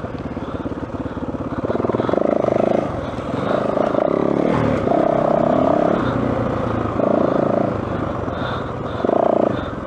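Yamaha WR450F single-cylinder four-stroke enduro engine under way on a woods trail, the throttle opened in short bursts about five times, dropping back between them.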